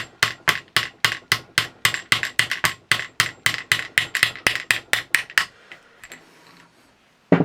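Hammer tapping a small brass punch to drive a tight barrel band off a rifle stock, about four quick sharp taps a second. The tapping stops about five and a half seconds in, and a single knock follows near the end.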